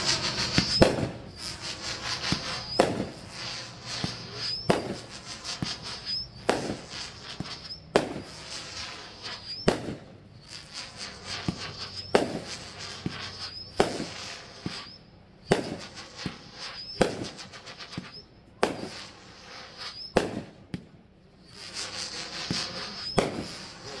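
Brothers Pyrotechnics Parrots Prattle 500g firework cake firing shot after shot at a steady pace, about one every one and a half to two seconds. Each shot carries a high screeching tail and ends in a bang.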